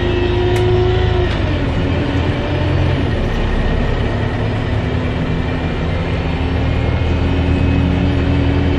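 A bus engine running, heard from inside the moving bus along with road noise. The engine pitch drops about a second in, then slowly climbs again.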